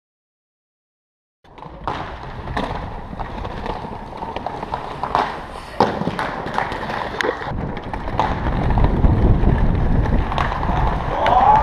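Silence for about a second and a half, then inline skate wheels rolling over paving stones, with repeated sharp clacks of the skates striking tile joints and a ledge. The rolling rumble grows louder toward the end.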